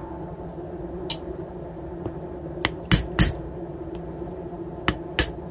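A screwdriver works at a screw in the metal end plate of a brushless ebike motor, making a handful of short, sharp metallic clicks at uneven spacing, two of them in quick pairs. A steady low hum runs underneath.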